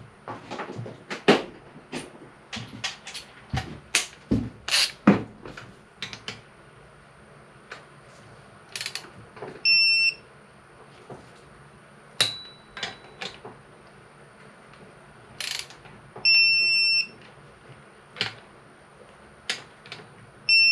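Clicks and knocks of a ratchet and socket working on the bolts, then a GearWrench digital torque wrench beeping high: once about ten seconds in, again for longer some six seconds later, and once more at the end. The beep signals that a 13 mm camshaft retaining bolt has reached the 23 ft-lb torque spec.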